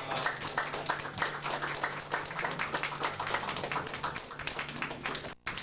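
A crowd of guests applauding, a dense, irregular patter of many hands clapping, cut off abruptly for a moment near the end.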